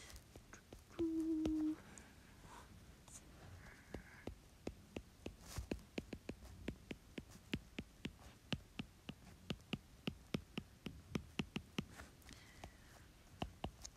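Stylus tip tapping and clicking on a tablet's glass screen while tick marks and numbers are written: many short sharp clicks, irregular and several a second, mostly from about four seconds in. About a second in, a brief steady hum-like tone is the loudest sound.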